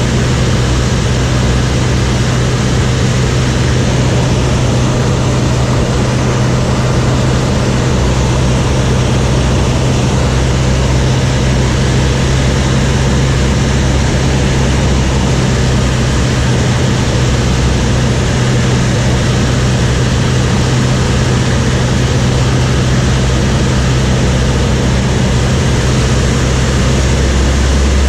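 Light propeller aircraft's piston engine and propeller droning steadily, heard loud inside the cockpit, with a strong low hum. Near the end the hum shifts lower.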